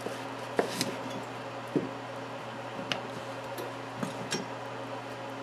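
Chef's knife slicing through yellow squash and knocking on a wooden cutting board: a handful of light, irregular taps over a steady low hum.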